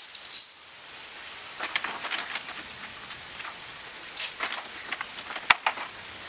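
Short bursts of metallic clicking and clinking from a ratchet and socket working the 10 mm bolts that hold the electric cooling fan, with one sharp click near the end.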